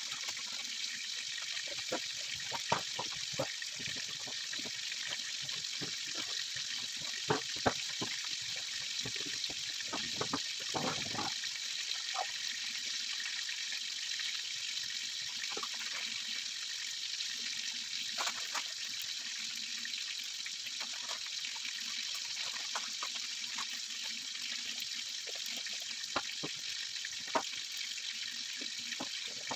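Chicken pieces frying in a pan: a steady sizzling hiss with scattered crackles and pops, busiest in the first dozen seconds.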